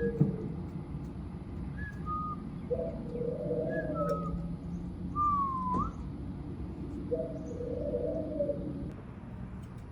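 Birds calling: a few short clear whistled notes, one sliding down and then flicking up about six seconds in, and two lower warbling phrases, over a steady low rumble.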